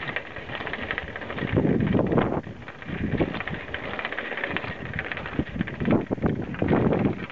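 A bicycle rolling over a gravel path, its tyres crunching, with wind buffeting the microphone in irregular gusts.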